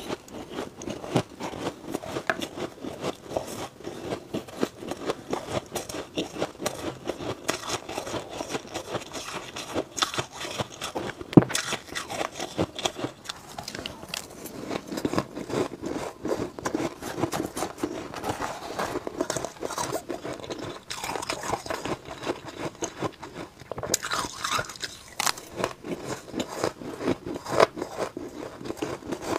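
Close-miked crunching and chewing of spoonfuls of powdery frost ice: a dense, continuous run of crisp crackles and crunches as the frozen ice is bitten and broken down in the mouth.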